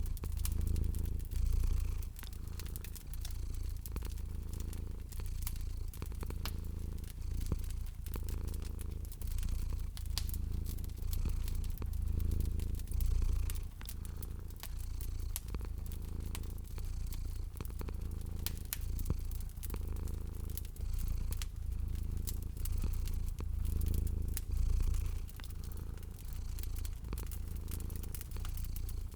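A cat purring steadily, the low rumble swelling and easing with each breath, while a wood fire crackles with frequent small sharp pops.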